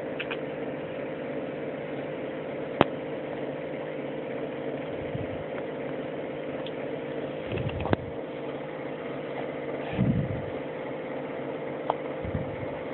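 A baby hiccuping: three short, sharp hiccups a few seconds apart, the first the loudest, over a steady low mechanical hum.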